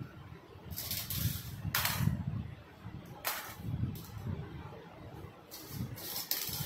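A round mesh sieve spun by hand on its rim on a tile floor, scraping and rattling in short bursts as it spins and wobbles down, several times over.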